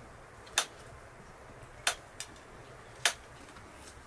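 A kitchen knife clicking against an enamel plate while cutting a block of white cheese: three sharp clicks about a second apart, with a fainter one just after the second.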